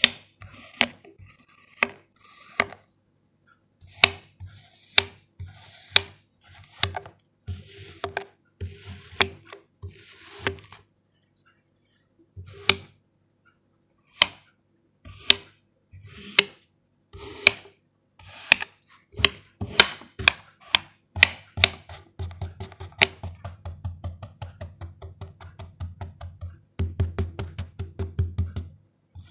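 Kitchen knife slicing through kinetic sand and striking the cutting board: sharp knocks about once a second, quickening into a rapid run of chops near the end. A steady high-pitched hiss runs underneath.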